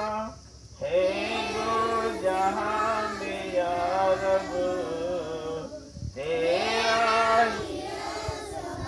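A group of children singing a song in unison, in long held phrases with a short break about half a second in and another about six seconds in.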